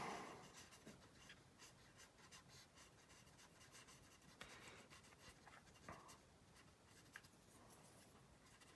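Near silence with faint scratching and rubbing: a cotton swab worked over the painted plastic surface of a scale model aircraft, blending oil-paint exhaust stains.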